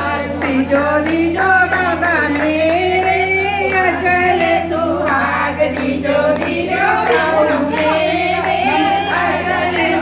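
Women singing a devotional song together, their voices held and wavering in a continuous melody over a steady low hum.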